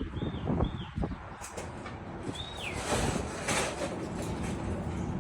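Metra commuter train standing at the platform: a steady low rumble with a few sharp knocks in the first second and a short burst of hiss about three seconds in. A few short high chirps sound over it.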